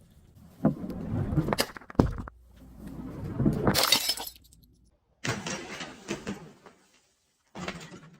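Glass bottles breaking and crunching in four separate bursts, with sharp cracks in the first, each burst cut off abruptly into silence.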